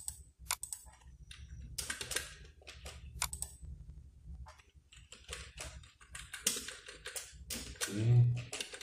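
Typing on a computer keyboard: irregular key taps and clicks, coming in quicker clusters in the second half. A short hum of a voice comes near the end.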